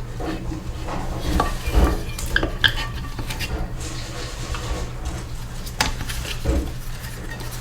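Small metal engine parts and tools clinking, scraping and knocking as the small Briggs & Stratton engine is taken apart by hand, over a steady low hum.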